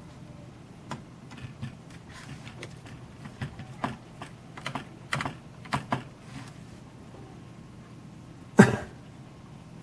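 Small screwdriver turning a screw in the metal base of a Sony Mavica digital camera: a run of light, irregular clicks and ticks from the tip and screw. One much louder knock comes near the end.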